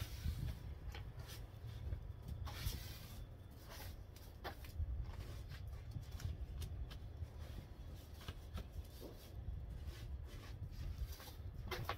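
Snow brush sweeping and scraping wet snow off a pickup truck's window and door, in irregular short strokes, over a low rumble.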